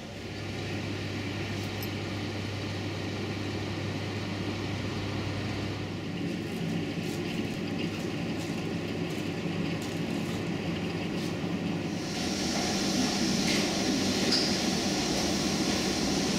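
Steady machinery noise at an airport gate. A low hum gives way about twelve seconds in to a louder, hissing rush of air.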